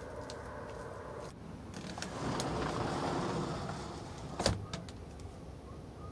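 A vehicle passing at a distance: a broad rushing noise that swells and fades over about two seconds. A single sharp click about four and a half seconds in.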